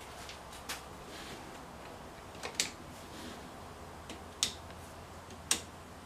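Sharp plastic clicks, four of them spread a second or two apart, from the throttle handle and its switch on an Echo PB-580T backpack leaf blower as they are handled. The engine is not running.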